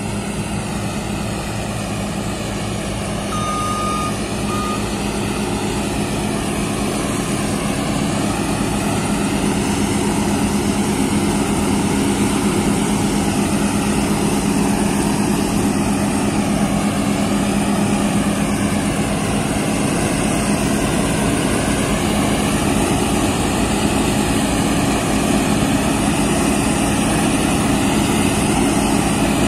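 New Holland TC5070 combine harvester running while cutting alfalfa: a steady engine and threshing drone that grows louder as the machine comes closer. A short high beep sounds twice about three seconds in.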